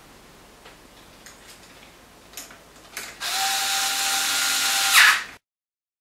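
A few light handling clicks, then a small power tool's motor runs steadily for about two seconds, rising briefly at the end before it stops abruptly.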